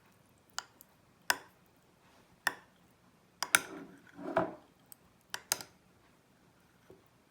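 A series of light clicks and clinks of spoons and small glass dishes being handled, about nine sharp taps in all, with a short scraping sound in the middle.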